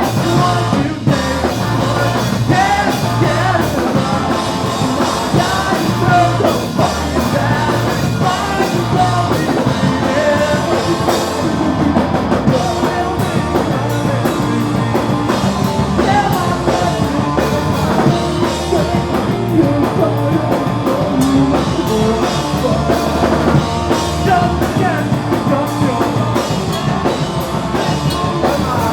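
Live punk rock band playing a song: fast drum kit and band with a singer, loud and continuous.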